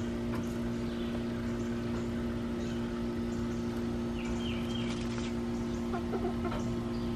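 Chickens clucking quietly, with a brief double chirp about four seconds in and a few short clucks near the end, over a steady low hum.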